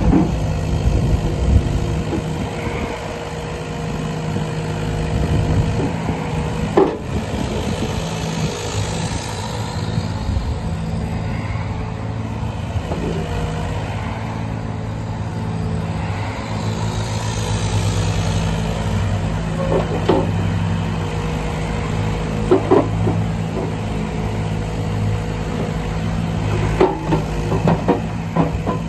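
Yanmar B25V mini excavator's diesel engine running steadily, with a few short knocks and clunks now and then.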